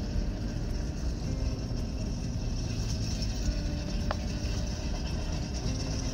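Steady low rumble, with a brief high ring about four seconds in.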